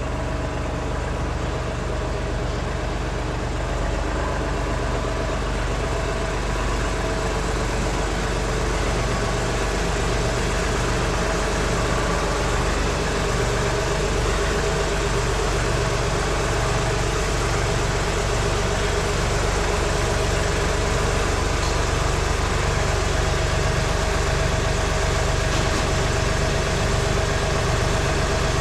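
John Deere 3046R compact tractor's three-cylinder diesel engine running steadily at low revs, getting slightly louder over the stretch.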